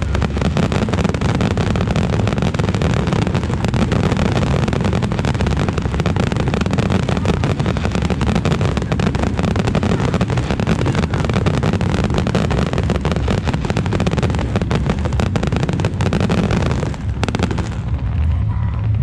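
Fireworks display in a dense barrage: a rapid, continuous stream of bursts and crackles over a deep rumble, easing off shortly before the end.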